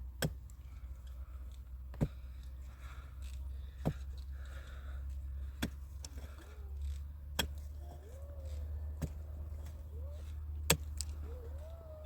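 Sharp knocks, evenly spaced about once every two seconds, over a steady low rumble, with short rising-and-falling chirps in the second half.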